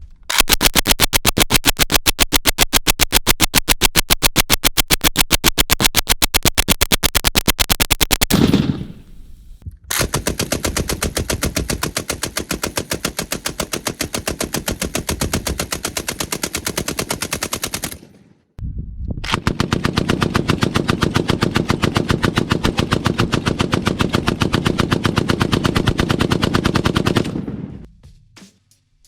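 M240B belt-fed machine gun firing through a Dead Air Sandman S suppressor in three long full-auto bursts of about eight seconds each, with short pauses between. The sustained fire is the torture test meant to overheat and destroy the suppressor.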